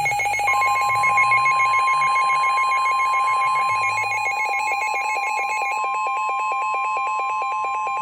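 Emergency alert attention signal: a fast-pulsing, buzzy alarm tone, joined about half a second in by a steady high tone like the 1050 Hz weather-radio warning tone, both sounding together. The pulsing stops near the end while the steady tone carries on.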